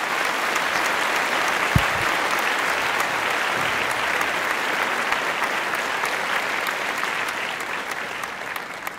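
Audience applauding, a dense patter of many hands clapping that thins out near the end, with one brief low thump about two seconds in.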